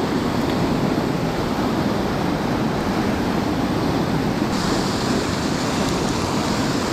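River rapids rushing steadily over a rock ledge, a continuous loud whitewater hiss that turns a little sharper about four and a half seconds in.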